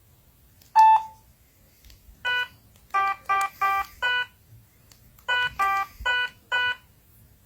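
A phone's electronic beeping ringtone: short beeps at a few different pitches, one on its own, then a run of five, then a run of four.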